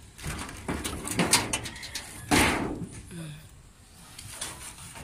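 A fingertip rubbing and scraping across ash-covered rusty corrugated metal roofing, with small knocks and one loud brushing scrape a little past two seconds in.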